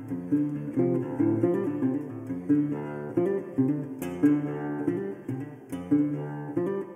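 Background music: acoustic guitar picking a steady run of plucked notes.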